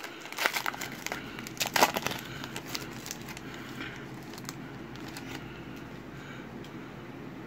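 Foil trading-card pack wrapper crinkling and crackling as it is torn open, loudest in the first two seconds, then fainter rustles and clicks as the wrapper and cards are handled.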